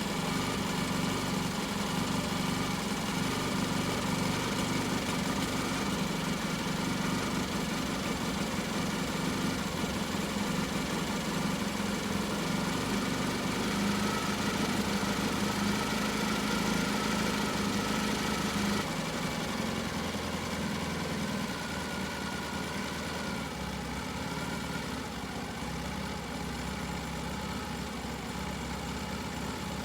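Classic motorcycle engine running steadily, settling to a lower, quieter speed about two-thirds of the way through.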